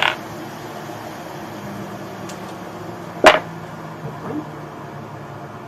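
Steady fan noise from the microsoldering bench equipment, with a short click at the start and a louder sharp click about three seconds in.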